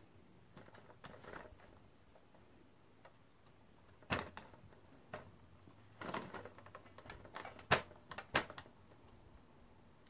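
Clicks and knocks from a baby's plastic activity-table toy being handled: scattered sharp taps, a stronger knock about four seconds in, and a quick cluster in the second half, the loudest near the end of that cluster.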